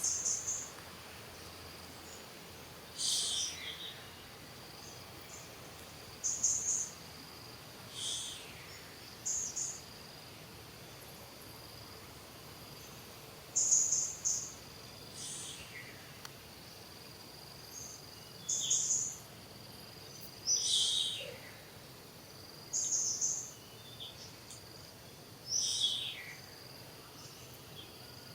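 Outdoor wildlife ambience: high bird calls, about five falling whistles with bursts of quick high chirps between them, over a steady high-pitched insect drone.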